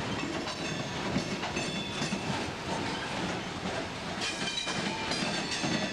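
Loaded coal hopper cars of a freight train rolling past, their wheels clattering on the rails in a steady rumble. A high-pitched wheel squeal rises over it twice, about half a second in and again about four seconds in.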